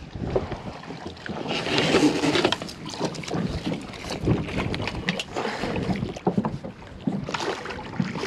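Wind gusting on the microphone with water splashing, as a hooked speckled trout thrashes at the surface beside a boat's hull; the splashing swells about two seconds in and again near the end.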